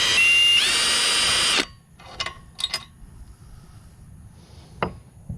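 Power drill spinning a socket to run out the already-loosened cylinder head bolts. The motor whines steadily, shifts pitch slightly, and stops about a second and a half in. A few light metal clinks and a knock follow near the end.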